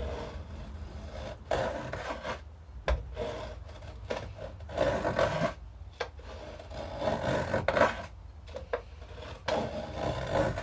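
Small hand plane shaving a wooden mandolin brace in irregular rasping strokes, chamfering it down to a triangular profile.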